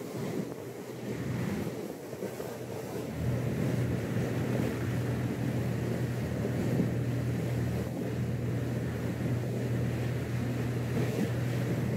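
Engines of a 2002 Bayliner 4788 motor yacht running under way, a steady low hum, with wind and water rushing past. The hum grows louder about three seconds in.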